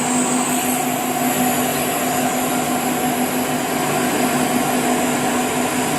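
Cocoa grinding machine running steadily: a dense, even mechanical noise with constant whining tones.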